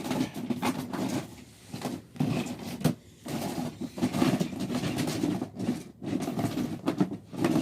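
Plastic toy train track pieces being rummaged through, handled and clicked together, an irregular run of clacks and rustling.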